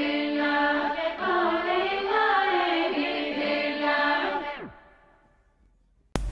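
Background music with sung vocals that slides down in pitch and fades out about four and a half seconds in. After a moment of near silence, a loud noise cuts in abruptly right at the end.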